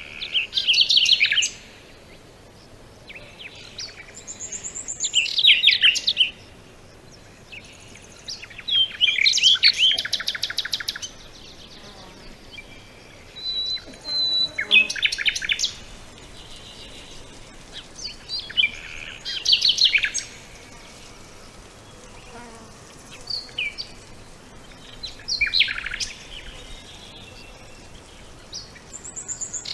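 Songbird singing: short, quick phrases of rapid high notes, each about a second long, repeated every few seconds, with one brief thin whistle in between.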